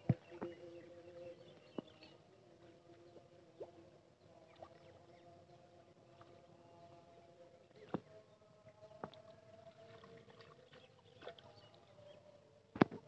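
Hands splashing and sloshing in shallow pond water while groping for fish, with a few sharp splashes and a louder splash near the end. A faint steady motor hum with a slightly wavering pitch runs underneath.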